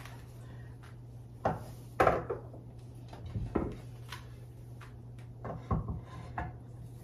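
Wooden pumpkin-shaped serving boards and plate easels being set down and shifted on a kitchen countertop: several separate knocks and scrapes, over a low steady hum.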